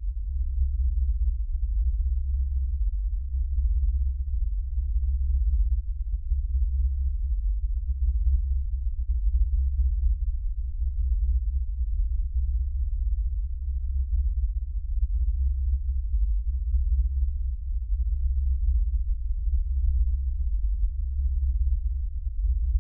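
A steady, deep low drone with nothing above a very low bass register. It starts abruptly out of silence and holds at an even level throughout.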